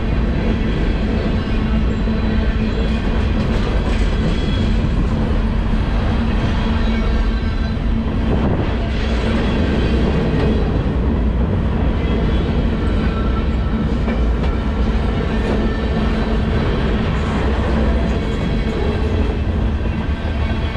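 Freight train's cars rolling past close by: a steady rumble of steel wheels on the rails with a steady hum.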